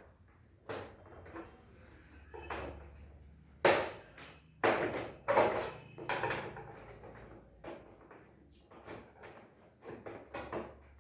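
Irregular knocks and clatter of hard objects, the loudest a few sharp hits in the middle.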